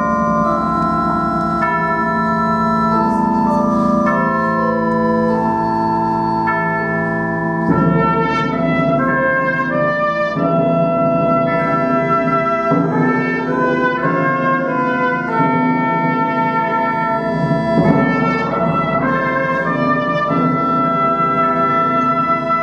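Pipe organ playing sustained chords, joined partway through by a trumpet playing a slow melody over it.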